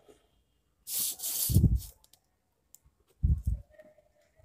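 Plastic drafting scale sliding across drawing paper with a brief hiss as it is shifted to a new position, then a few dull knocks as it is set down and handled.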